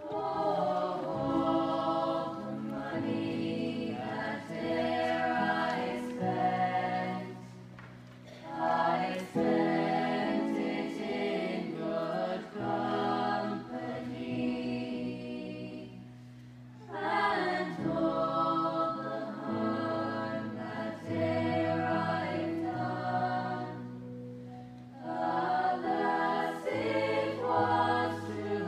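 A teenage school choir of mixed voices singing in phrases, with short breaks between them about a third and two thirds of the way through.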